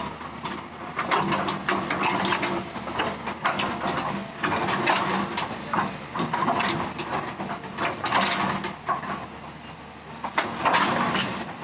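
Heavy machinery running with a steady low hum under irregular, repeated clattering and clanking.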